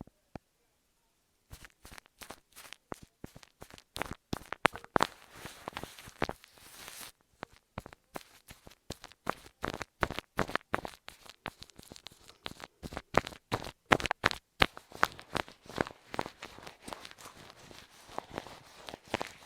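Close-miked ASMR trigger sounds: a rapid, irregular run of sharp clicks and crackles, starting about a second and a half in, with a short pause around seven seconds.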